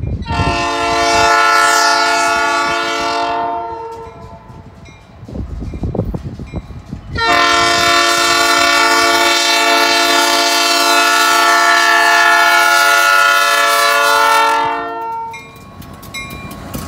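Air horn of a Cincinnati Eastern Railroad GP15-1 diesel locomotive sounding two long blasts for the grade crossing, the first about three seconds long and the second about eight seconds, with a low rumble in the gap between them.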